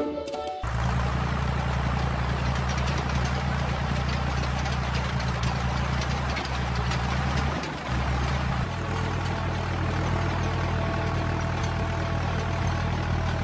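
Tractor engine running steadily, coming in suddenly under a second in, with its note shifting about nine seconds in.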